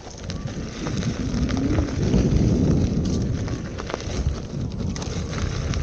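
Wind buffeting the microphone over the rumble of a Veteran Sherman electric unicycle's tyre rolling over a rough dirt trail, with scattered sharp clicks and knocks.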